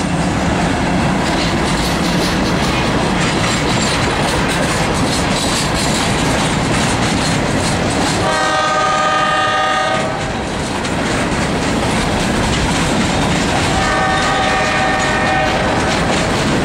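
Empty hopper cars of a CSX rock train rolling past with a steady, loud rolling noise. The locomotive's horn sounds twice, each blast about two seconds long: once about eight seconds in, and again near the end.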